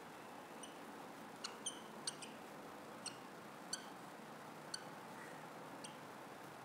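Whiteboard marker squeaking against the board while writing: about nine short, high-pitched squeaks at irregular intervals, over faint room hiss.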